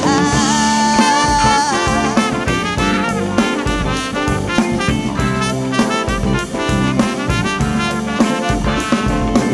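Live funk-soul band playing an instrumental break: a trumpet holds one wavering note near the start, then plays quick runs of short notes over a steady drum-kit beat.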